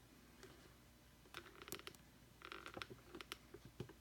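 Faint handling noise: scattered small clicks and rustles, in two short clusters about one and a half and two and a half seconds in.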